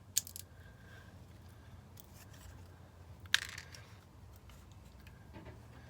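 Two sharp small metallic clicks from handling the parts of a rekeyed pin-tumbler lock cylinder, one at the very start and a louder one about three seconds in, over a faint low hum.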